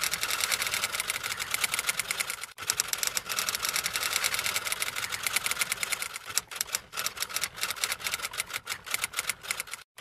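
Typewriter sound effect: rapid key clicks in a fast, even run, with a brief break about two and a half seconds in, becoming sparser and more uneven in the second half and stopping just before the end.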